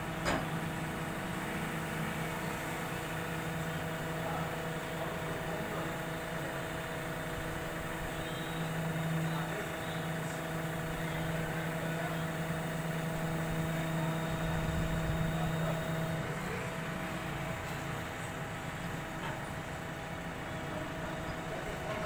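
JCB 3DX backhoe loader's diesel engine running steadily while the backhoe arm moves a heavy steel bucket hung on a chain. A steady hum within the engine sound stops about three quarters of the way through, and there is one short knock just after the start.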